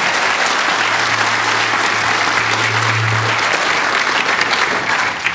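Conference audience applauding, a dense steady clapping that stops sharply at the very end.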